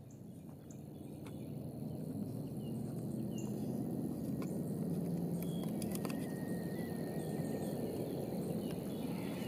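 Rural outdoor ambience: a low steady rumble that swells over the first two seconds, with faint scattered bird chirps and a thin insect tone that comes in about six seconds in.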